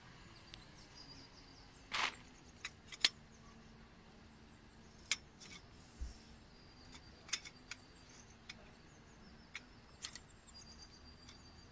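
Sections of a metal tent pole knocking and clicking together as they are slotted into one long centre pole: a dozen or so short, sharp clicks at irregular intervals, the loudest about two and three seconds in.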